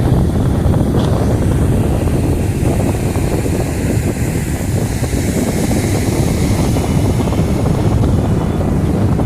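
Strong wind buffeting the microphone in a steady low rumble, with a higher hiss swelling briefly in the middle.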